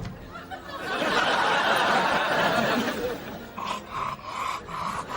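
Laughter: a loud stretch of noisy laughing, then a run of short snickers, about three a second, near the end.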